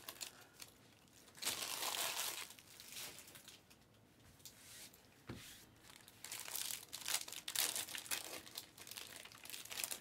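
Foil trading-card packs crinkling and tearing as they are ripped open by hand, in irregular bursts, with a single sharp tap about halfway through.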